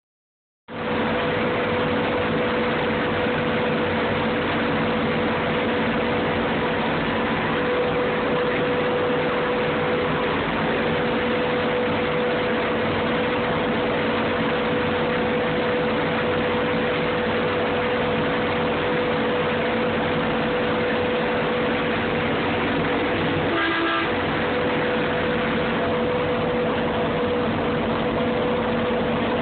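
Diesel engine of a Manitowoc 4100W Series 2 crawler crane running steadily, heard from inside the operator's cab. Once, a few seconds before the end, a short higher-pitched tone is heard briefly.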